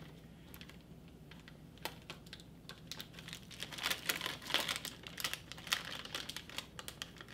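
Plastic pouch of dry mustard crinkling, with light irregular clicks and taps of a measuring spoon as powder is scooped out; the clicks are busiest between about three and six seconds in.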